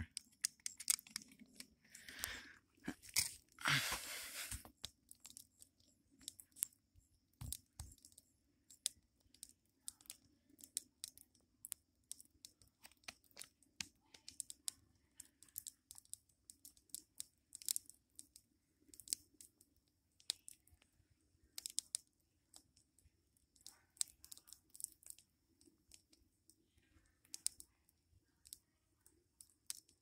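Wood fire crackling, with irregular sharp snaps and pops throughout and a louder, noisier stretch a few seconds in.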